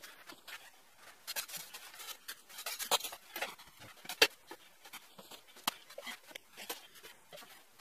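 Irregular scraping and light knocks of a hand scoop working concrete mix out of plastic buckets, with one sharper knock about four seconds in.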